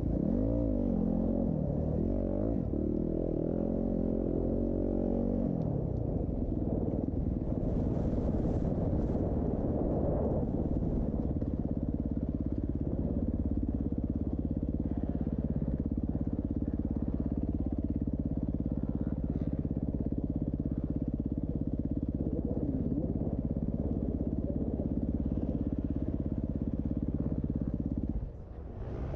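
Off-road motorcycle engines revving, the pitch rising and falling for the first few seconds. After that a steady engine note holds until it drops away shortly before the end.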